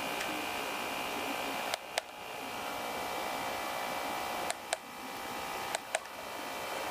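Three pairs of short, sharp clicks, spaced a second or two apart: keypad buttons on a Satlink WS-6906 satellite finder being pressed to step through its menus. Under them runs a steady hiss with a faint hum, which drops briefly after each pair of clicks.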